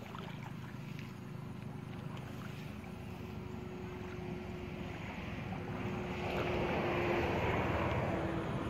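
Water sloshing and splashing as people wade and drag a hand net through a shallow canal, growing louder about six seconds in, over wind rumble on the microphone and a steady faint hum.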